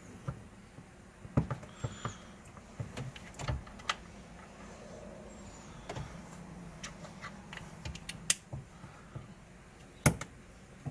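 Scattered sharp clicks and light knocks of small hard parts being handled and pressed into place while fitting solid shifter bushings to a car's shifter assembly. The sharpest click comes near the end.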